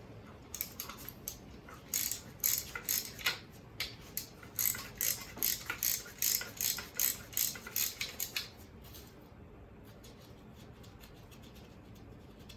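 Socket ratchet wrench clicking in short repeated strokes, about three a second, as it works an exhaust mounting bolt loose; the clicking stops about eight and a half seconds in.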